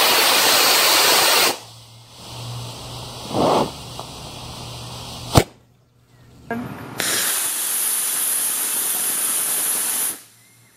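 An E-class model rocket motor burning with a loud, steady hiss that cuts off about a second and a half in, and a single sharp pop about five seconds in, the ejection charge firing. A second steady hiss of about three seconds runs from about seven to ten seconds in. Its thrust is not enough to push the jack plane along.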